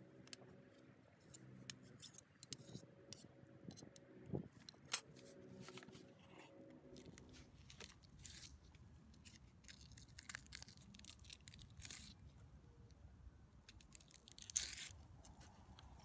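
Soft scattered taps, clicks and scrapes of a cleaver and knife on a wooden cutting board as minced meat and ingredients are handled and peeled, with a few sharper knocks about four and five seconds in and again near the end.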